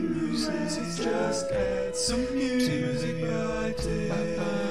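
Channel intro jingle sung in layered vocal harmony, a cappella. One note is held from about a second in to the end.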